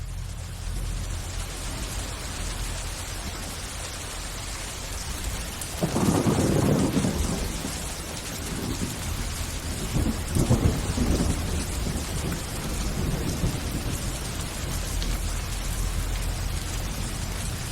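Thunderstorm: steady heavy rain hiss with a loud thunderclap about six seconds in, followed by more rolling peals of thunder a few seconds later.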